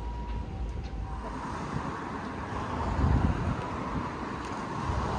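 Street traffic noise: a vehicle passing, louder about three seconds in, with wind buffeting the microphone.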